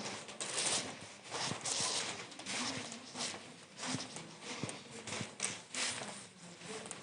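Footsteps of a person walking on a hard floor, irregular steps about every half second, with rustling between them.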